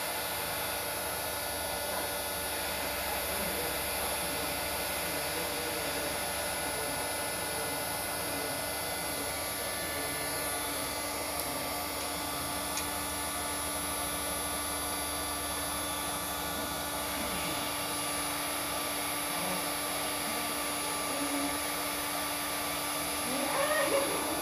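Electric heat gun running steadily: a constant rush of blown air with a steady low hum. It is heating arrow shafts so they can be straightened.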